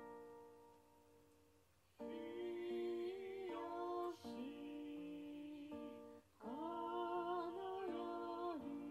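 Music: acoustic guitar chords under a voice singing long, wavering notes in two phrases, after a quieter lull about a second in.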